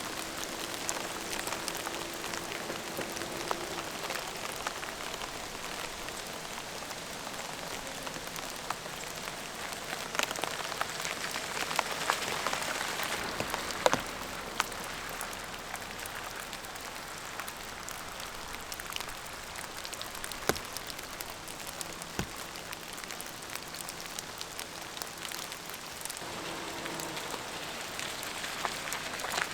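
Steady rain falling, with a constant hiss and many individual drops tapping, now and then a sharper single drop.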